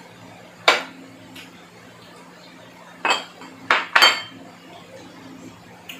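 Spoons and tableware clinking against ceramic plates and bowls during a meal: one sharp clink under a second in, then three more close together in the middle.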